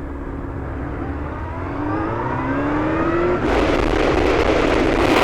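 Yamaha FZS600 Fazer's inline-four engine pulling away, its pitch rising as the revs climb. About three and a half seconds in, a loud rush of wind on the helmet microphone swamps it as speed builds.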